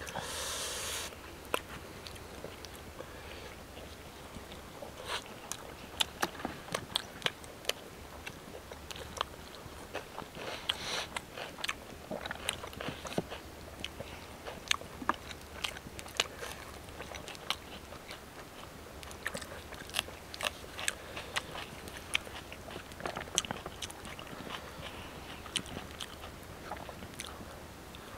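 Close-up eating sounds: chewing, biting and sharp irregular mouth clicks and smacks as two people eat chicken and parathas with their hands. A short hiss comes right at the start and again about eleven seconds in.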